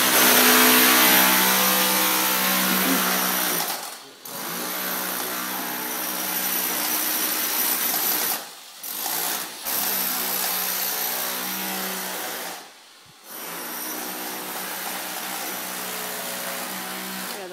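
A small motor running steadily at an even pitch, in several stretches with sudden short breaks between them.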